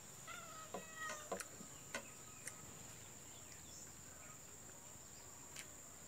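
Quiet outdoor background: a steady high-pitched insect drone, a few short bird calls in the first second and a half, and scattered soft clicks.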